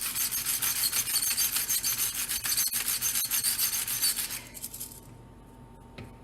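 Pepper mill being twisted, grinding peppercorns with a rapid raspy crunching that stops about four and a half seconds in.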